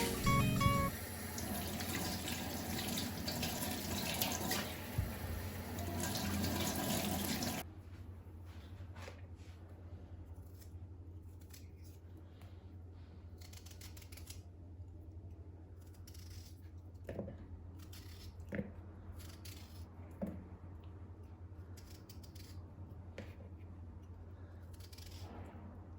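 Water running from a tap into a sink, shut off suddenly about eight seconds in; afterwards only a low hum and a few soft knocks.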